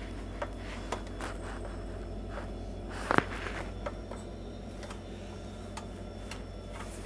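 Scattered light clicks and knocks from a quartz room heater's plastic body and wire grille as it is tilted and handled, with a louder clatter about three seconds in, over a steady low hum.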